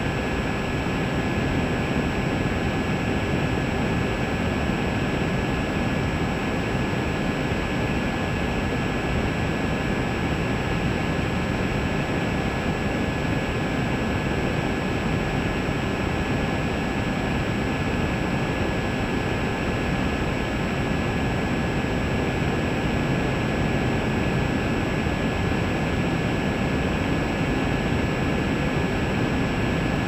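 Electric motor and propellers of a small remote-controlled aircraft running steadily in flight, picked up by its on-board camera: a constant high whine over a dense rush of wind and propeller noise.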